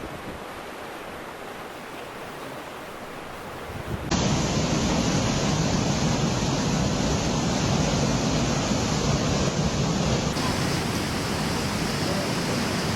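Rushing floodwater: a steady, noisy rush of water. It jumps abruptly much louder about four seconds in and shifts again near ten seconds.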